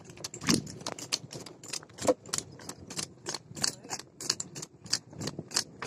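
Buffalo cart running at a trot: a quick, uneven run of sharp metallic clicks and jingles, about five a second, from the moving cart and harness.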